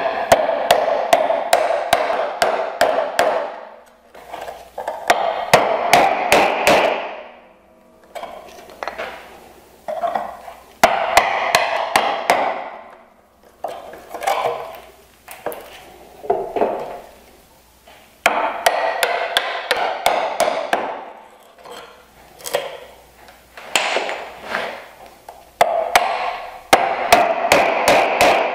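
Mallet striking a chisel into wood, chopping out the waste of a bridle joint's open mortise. The blows come in runs of several quick, sharp strikes a second, with short pauses between the runs.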